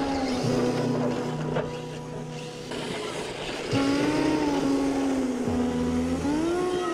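Small RC drift cars' electric motors whining, rising and falling in pitch with the throttle, with tyre scuffing on asphalt as the cars slide past. The whine gets louder just under four seconds in, as the blue car comes close.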